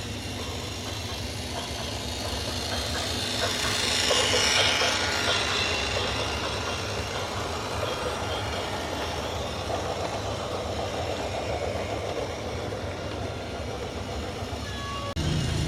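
Machinery running with a rattling clatter, swelling louder about four seconds in, then giving way abruptly near the end to a deeper, steadier hum.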